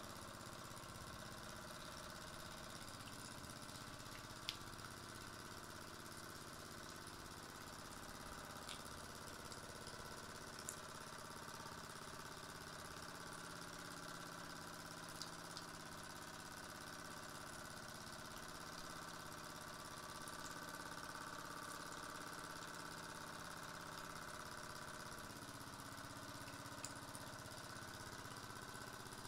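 Small scratch-built V-twin model steam engine with 8 x 10 mm cylinders running steadily on steam. A few sharp clicks stand out here and there over the steady running.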